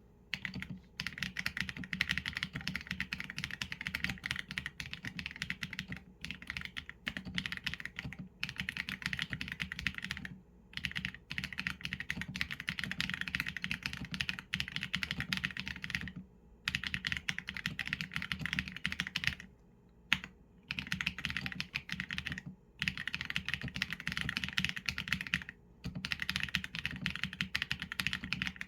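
Typing on a Qsenn A75 mechanical keyboard with Leobog Graywood v4 linear switches and PBT keycaps. Fast, steady keystrokes come in runs of several seconds, broken by brief pauses of about a second or less.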